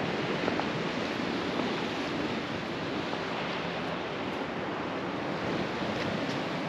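Ocean surf washing over a rocky shore, a steady wash of noise, mixed with wind on the microphone.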